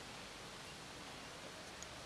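Faint steady hiss of background noise, with one faint tick near the end from cats crunching dry kibble out of a plastic tub.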